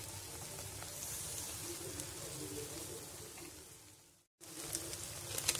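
Thick masala gravy simmering and faintly sizzling in a nonstick frying pan. The sound fades and cuts out briefly about four seconds in, then returns with a few small clicks.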